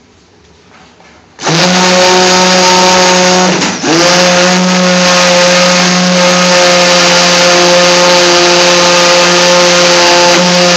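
Immersion blender switching on about a second and a half in and running with a steady high whine, blending a pot of base gravy smooth. Its pitch dips briefly once about two seconds after it starts, then comes straight back up.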